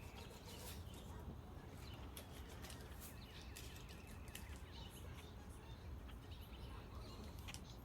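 Faint background with a steady low hum and scattered small clicks, with birds chirping faintly now and then.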